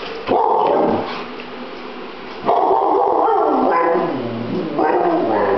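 Wolfhound-lurcher dog giving three drawn-out whining, yowling calls, the long middle one sliding down in pitch, as it vocalizes for its dinner.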